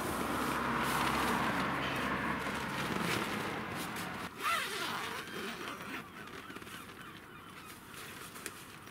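Traffic noise rising from the roads below, a steady hum that fades after the first few seconds, then a single short honk about halfway through.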